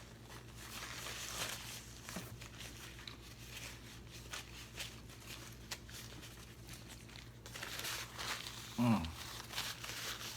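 Close-miked eating sounds of a person finishing fufu and egusi soup: soft chewing, wet mouth clicks and light crinkling, with a short hummed voice about nine seconds in.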